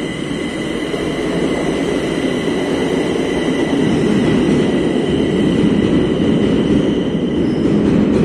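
Madrid Metro train pulling out of an underground station and running off into the tunnel. Its steady rumble of wheels on rail grows louder over the first few seconds, with a thin, steady high whine above it.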